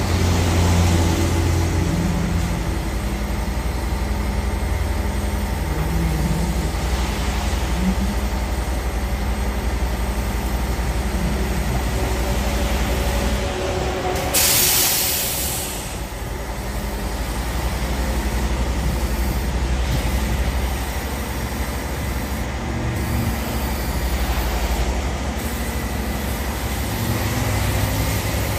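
Roll-off truck's engine running with a steady low rumble as its hoist pulls a steel roll-off dumpster up onto the truck. About halfway through, a loud hiss lasts about a second and a half.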